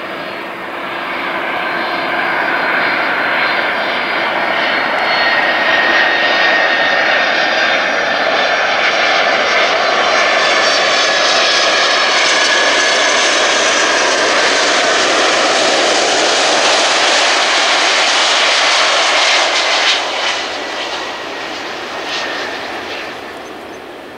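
McDonnell Douglas MD-11 freighter's three jet engines on a low landing approach, a loud roar with a whine that slowly falls in pitch as the jet passes close by. It builds from about a second in, holds through the middle, then fades over the last few seconds as the plane flares and touches down.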